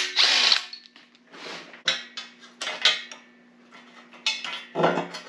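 Tube-steel exhaust headers and hand tools clanking and scraping in irregular bursts as the headers are unbolted and worked off the engine's cylinder head, with a faint steady hum underneath.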